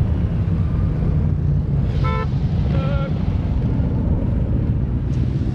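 Motorcycle engine running steadily as the bike rides along, with wind on the microphone. Two brief higher tones sound about two and three seconds in.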